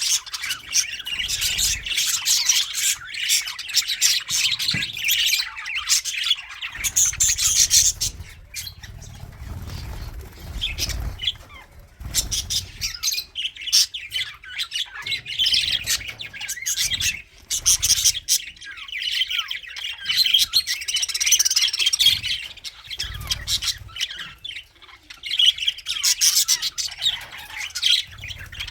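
A colony of budgies (budgerigars) chirping and chattering together, many birds at once, with sharper squawks now and then. The chatter thins out briefly twice.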